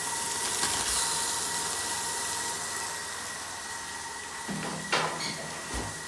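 Raw chicken pieces sizzling in hot oil in a wok, the hiss easing after the first couple of seconds, over a steady faint high tone. A sharp knock about five seconds in.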